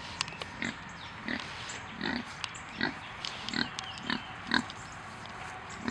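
Kunekune pig grunting: a run of short, low grunts, about one every three-quarters of a second.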